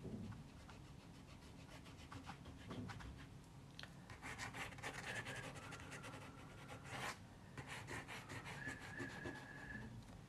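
Graphite pencil scratching on paper in short sketching strokes, with a quick run of strokes in the middle.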